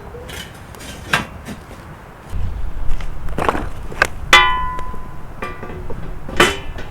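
A handful of sharp knocks and a ringing metallic clang about four seconds in, over a low rumble that starts about two seconds in.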